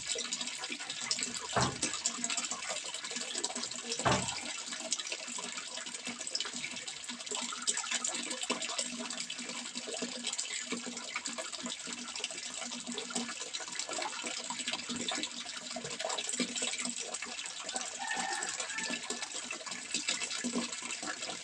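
Running water splashing and trickling steadily, full of small splashes, with two louder splashes in the first few seconds.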